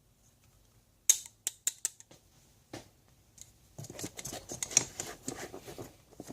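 Hand tools being handled and moved around a tool bag. A quick run of sharp clicks comes about a second in, then a longer stretch of clattering and rustling from about four seconds.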